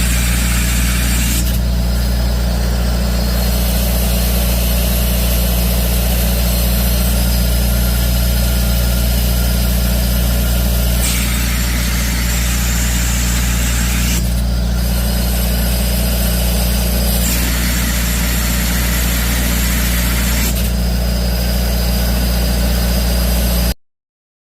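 Small compressed-air-driven industrial vacuum cleaner running: a loud steady rushing hiss over a low hum. The hiss grows brighter for a few seconds at a time, twice. The sound cuts off suddenly near the end.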